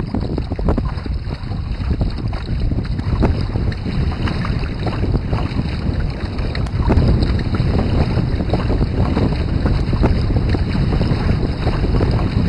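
Wind buffeting the microphone in a Force 4 breeze, over water rushing and splashing past the hulls of a trimaran sailing canoe under way. A steady loud rumble that swells and dips with the gusts.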